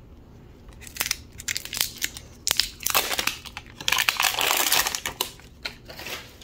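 Crinkly wrapper layer of an LOL Surprise ball being peeled and torn off by hand, crackling and rustling in quick bursts starting about a second in.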